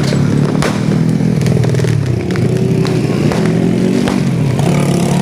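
Motorcycle engines running and revving close by. Sharp firecracker bangs go off among them now and then.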